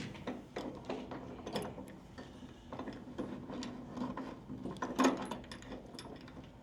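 Scattered light metallic clicks and taps of hand tools working on steel hardware, with one louder knock about five seconds in.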